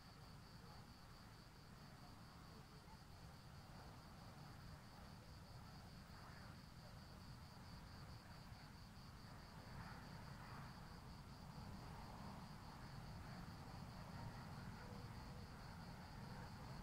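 Faint crickets chirping steadily in a fast, even pulse, over a faint low rumble.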